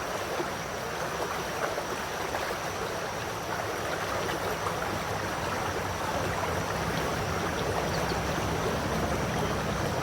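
Flowing river water, a steady rushing sound, with a low rumble joining about halfway through.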